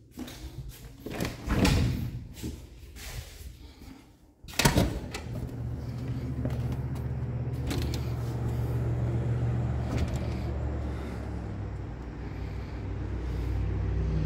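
A door with a knob and deadbolt being handled and opened: clicks and knocks, then a loud thud about four and a half seconds in. After that a steady low mechanical hum runs on.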